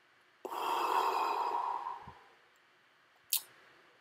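A man blowing out one long, controlled breath lasting about a second and a half, a deliberate exhale. A brief click follows about a second later.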